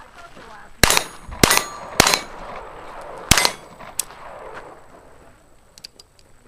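Four pistol shots, three about half a second apart and a fourth after a pause of over a second, followed by a fainter sharp knock and a few light clicks.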